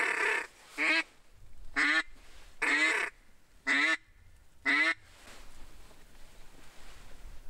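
A series of six loud duck quacks, about one a second, the first and fourth drawn out longer, then the calling stops about five seconds in.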